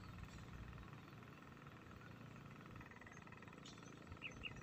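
Near silence: outdoor ambience with a faint low rumble, and a few brief faint high chirps and clicks near the end.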